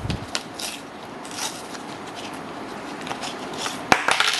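Plastic blister packaging crackling and clicking as it is pulled apart by hand, with a sharp knock about four seconds in.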